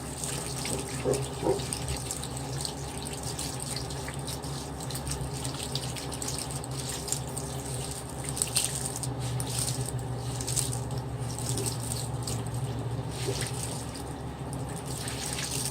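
Tap water running steadily into a sink while makeup sponges are rubbed on a bar of soap and rinsed under it.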